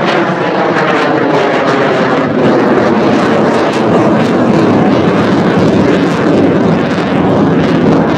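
Lockheed Martin T-50A jet trainer's single F404 turbofan at full power during a straight vertical climb: loud, steady jet noise with a dense rushing roar and faint shifting whine tones in the first seconds.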